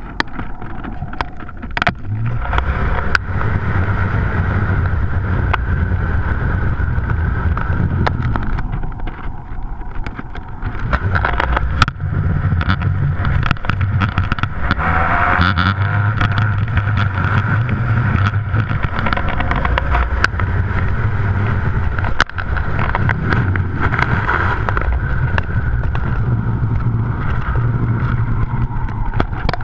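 Wind buffeting a GoPro camera carried aloft on a kite line: a loud, continuous low rumble with frequent sharp clicks and knocks as the camera swings on the line.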